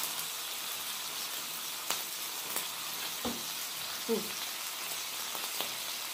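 Ribeye, fried rice and lobster tail sizzling steadily on a hot flat-top griddle. A few light clicks of a knife and fork against the griddle come around the middle.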